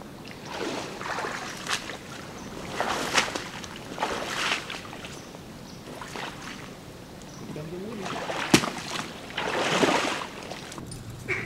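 Irregular splashing and sloshing of a person wading through shallow flooded brush, with twigs and stems brushing against clothing. A single sharp knock or snap about eight and a half seconds in is the loudest sound.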